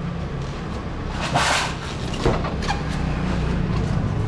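Styrofoam seafood boxes being handled: a short, loud rustling scrape about a second and a half in, then a knock, over a steady low engine-like hum.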